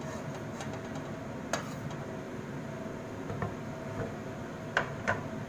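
A few sharp clinks of kitchen utensils and dishes being handled at the stove, the two loudest close together near the end, over a steady background hum.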